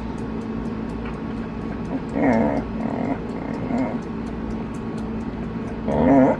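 A dog 'talking': a run of short grumbling, up-and-down vocal whines about two seconds in, then a louder one near the end. It is the dog's answer to being told to 'use your words', asking for her ball.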